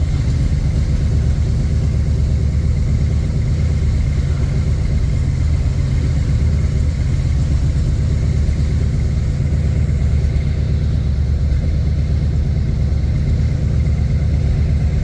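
Jeep J10 pickup's engine idling steadily with an even low rumble, its rebuilt carburettor holding a smooth idle.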